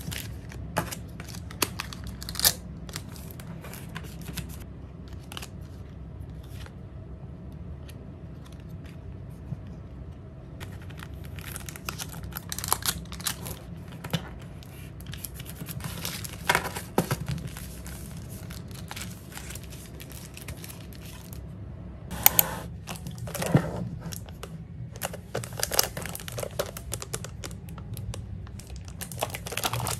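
Plastic card sleeves and printed pouches crinkling and rustling as photocards are packed by hand, with light taps and clicks on the desk. Near the end, a clear acrylic box is handled with a few sharper knocks.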